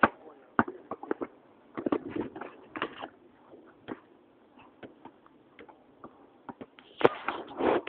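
Basketball bouncing on an asphalt court in irregular short knocks, with players' voices calling out in two short stretches, the later one near the end.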